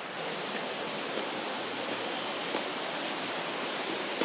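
A steady, even hiss of outdoor background noise with no distinct events.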